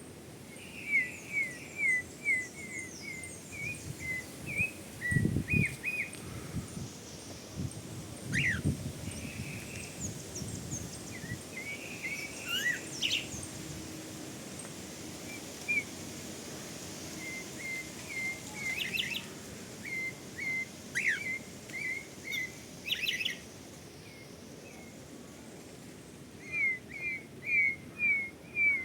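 A songbird singing outdoors: runs of short, quick whistled notes repeated in series, with pauses between phrases and a few higher calls from other birds. There are brief low rumbles about five seconds in and again near nine seconds.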